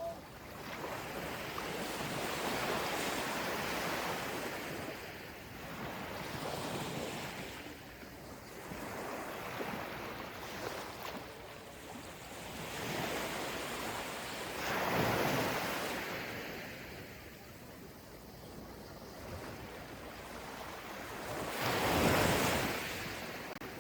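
Ocean waves breaking on a beach, the surf swelling and fading every few seconds, with the loudest breaks about two-thirds of the way through and again near the end.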